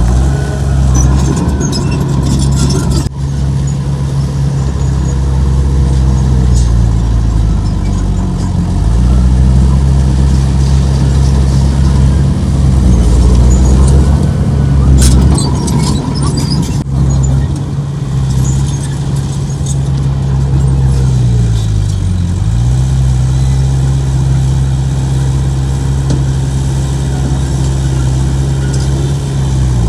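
Heavy diesel engine of earthmoving machinery running, with its pitch sagging twice under load and then recovering.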